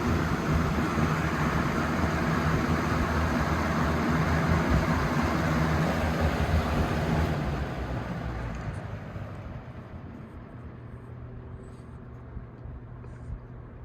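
Vintage Galaxy 3714 two-speed box fan with a plastic-housed motor running on high: a steady rush of air over a low motor hum. About seven seconds in it is switched down, and over the next few seconds the sound falls away to a much quieter run on low; the owner thinks the motor needs oiling.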